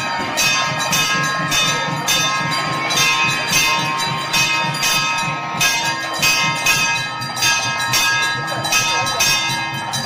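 Temple bells ringing, struck over and over at about two strokes a second, their tones ringing on between strokes.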